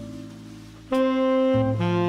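Background instrumental music: a held melody note over a bass line fades away, then a new phrase of sustained notes starts about a second in.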